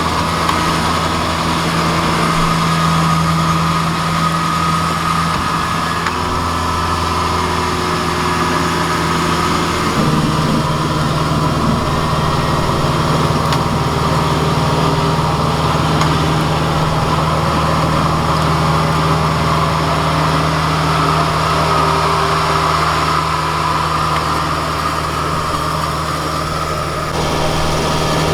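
Engine running steadily at a constant speed, a continuous drone whose pitch shifts slightly about ten seconds in.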